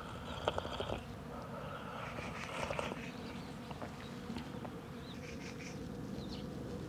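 Outdoor campsite ambience with a steady buzzing hum, of the kind heard from insects, under it. A few light clicks and knocks come about half a second to a second in, and faint high chirps come near the end.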